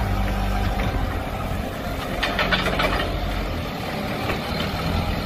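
Toyota forklift's engine running steadily as the forklift drives, a low even hum.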